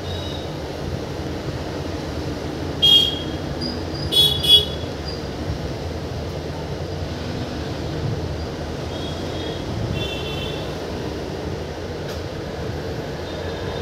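A passenger train running, heard from inside a coach as a steady low rumble. Short, shrill, high-pitched sounds come about three seconds in and twice more around four seconds in, the loudest moments.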